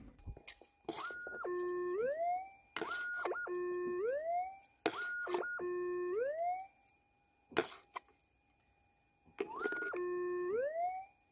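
Gold-prospecting metal detector giving its target signal as a scoop of soil holding a nugget is passed over the coil: an electronic tone that drops and then glides back up, four times over, with short clicks of handling between.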